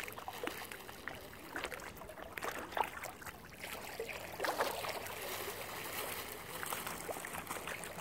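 Lake water splashing and lapping close by, with small irregular splashes as a mute swan feeds with its head in the water.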